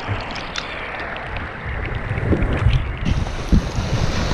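Surf washing and splashing over rocks close to a low camera, with wind buffeting the microphone as a low rumble and a few sharp splashes or knocks.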